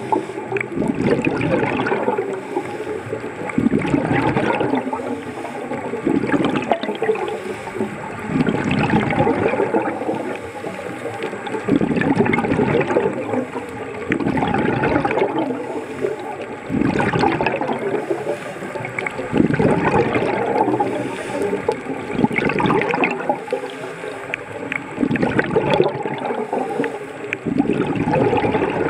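A scuba diver's exhaled bubbles gurgling and bubbling past an underwater camera in surges every two to three seconds, the rhythm of the diver's breathing, over a steady underwater wash.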